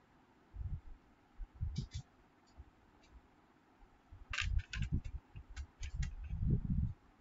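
Computer keyboard keys clicking in short quick runs as a word is typed, over dull low thuds; the longest thud comes near the end.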